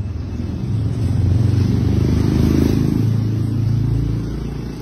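A motor vehicle engine running close by, a low steady hum that grows louder through the middle and eases off near the end.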